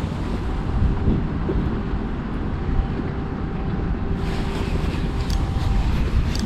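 Wind buffeting the microphone with a low rumble, over a faint steady hum. A few light clicks come near the end.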